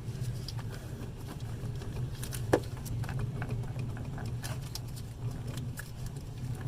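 Small plastic clicks and rattles of a wiring-harness connector on the engine computer (PCM) being worked free, its locking lever swung open by hand, with one sharper click about two and a half seconds in. A steady low hum runs underneath.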